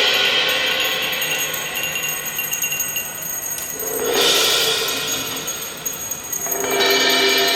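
Struck metal percussion ringing, with many overlapping tones that slowly fade. Fresh strikes come about halfway through and again near the end.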